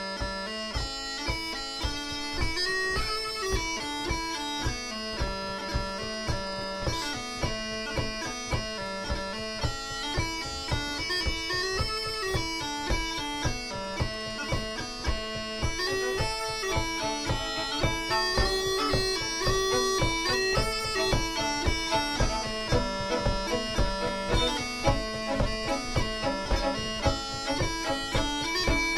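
Celtic band playing a lively instrumental tune: flute and fiddle carry the melody over a held drone note, with guitar and a steady bodhrán beat. It gets a little louder about halfway through.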